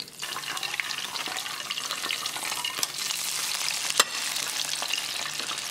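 Breaded salmon pieces deep-frying in hot oil in an electric deep fryer's wire basket: a steady crackling sizzle that starts as the basket goes back into the oil, with one sharp click about four seconds in.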